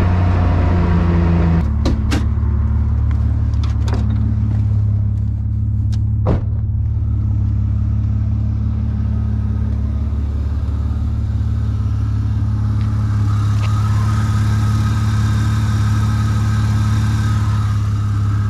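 BMW E36's engine idling loudly with only half of its exhaust fitted. The idle settles slightly lower about one and a half seconds in and then holds steady. A few sharp clicks come in the first several seconds.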